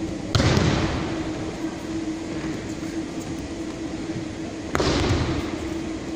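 Two loud slaps of a body hitting the mat in aikido breakfalls as the partner is thrown, about four seconds apart, each echoing through a large hall over a steady hum.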